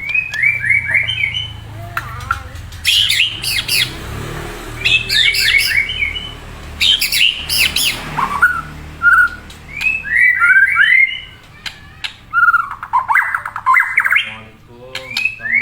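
Murai, a Copsychus songbird, singing in repeated phrases of quick, down-slurred chirping notes with short pauses between phrases and some higher, sharper notes mixed in. A faint low hum runs underneath.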